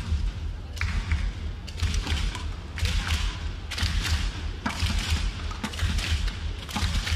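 Badminton rackets striking a shuttlecock back and forth in a doubles rally, a sharp hit roughly once a second, over a steady low hall rumble.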